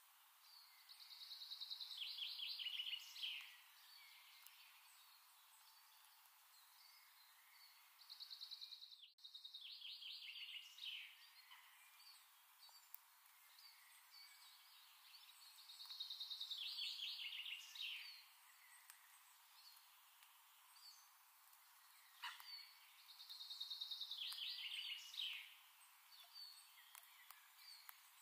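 A songbird singing the same short phrase four times, about every seven seconds: a high note running into a quick trill, over a faint hiss.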